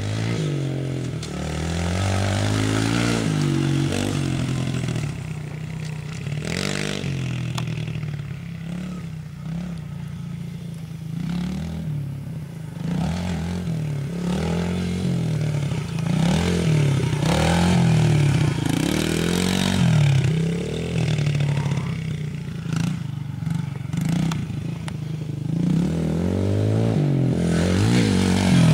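Small dirt bike engine being ridden hard, its pitch rising and falling over and over as the throttle opens and closes and the gears change.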